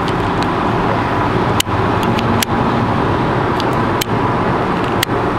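Steady road and engine noise inside a car cruising on a concrete freeway: a low rumble with tyre hiss over it, broken by four brief clicks.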